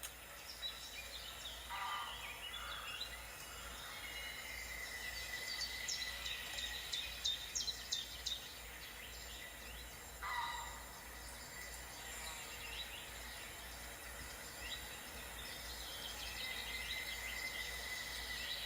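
Wild birds calling and chirping, with a run of sharp quick notes about six to eight seconds in and two short lower calls near two and ten seconds in, over a faint steady high whine.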